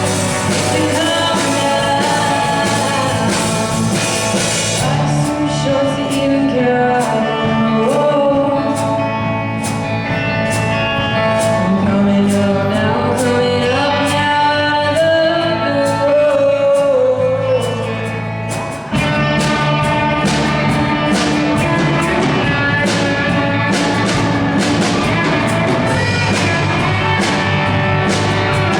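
Live band playing a rock song with a lead singer: sung melody over instruments, with a steady drum beat. Near the two-thirds mark the music thins out for a moment, then the full band comes back in.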